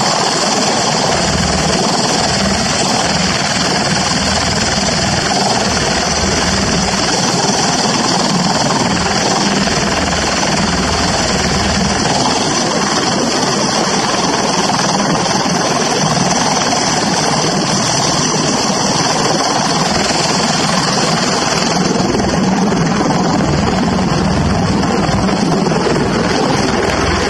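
CV-22B Osprey tiltrotor running on the ground with its proprotors turning, a loud, steady rotor and engine noise.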